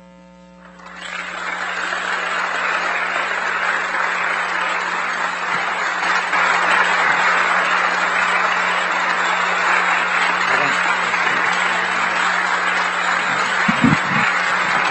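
Audience applauding after a lecture. The clapping starts about a second in, builds over the next few seconds, then holds steady.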